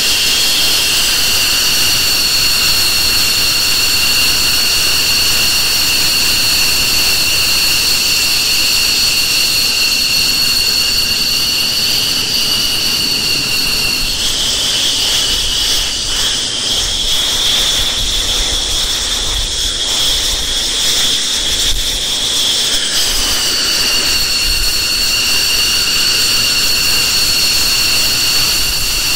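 F-15 fighter's twin turbofan engines running on the ground, a loud steady high-pitched whine over a jet hiss. About halfway through the whine shifts higher for several seconds with a deeper rumble underneath, then settles back to its earlier pitch.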